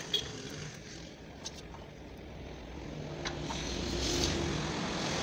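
Blowtorch flame running steadily on a radiator seam being soldered, a low rumbling hiss that grows louder toward the end, with a few light clicks.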